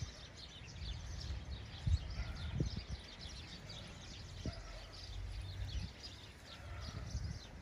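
Birds chirping rapidly and continuously around a flock of feeding pigeons, over a steady low rumble, with a few soft thumps.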